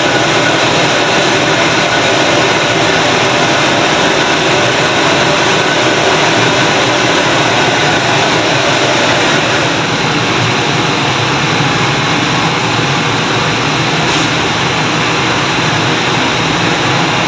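High-pressure gas burner under a karahi of hot frying oil, running with a steady roar while a bhatura deep-fries, easing slightly about ten seconds in.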